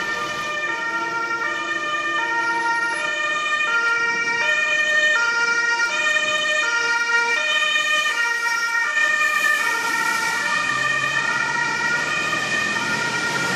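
Emergency vehicle's two-tone siren sounding continuously, its pitch stepping back and forth between two notes about every half second.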